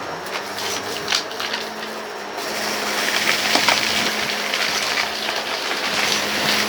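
Vacuum cleaner running with a steady motor hum, its hiss rising about two and a half seconds in, with scattered crackles and rattles from debris being picked up.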